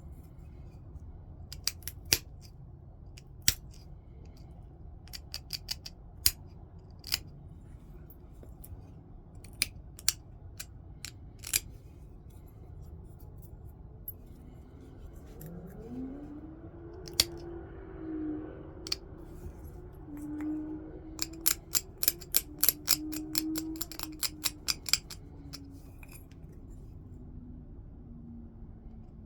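Stone knapping: sharp, separate clicks of flakes snapping off a stone point as it is worked. They come every second or two at first, then in a quick run of many clicks about two-thirds of the way through.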